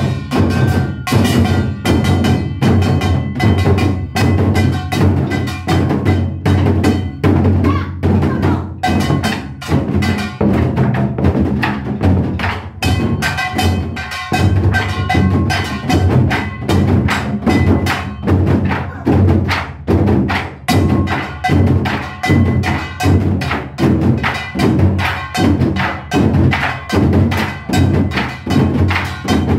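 Modeumbuk, a set of Korean barrel drums, beaten with sticks in a fast, steady rhythm of dense strokes over pitched backing music.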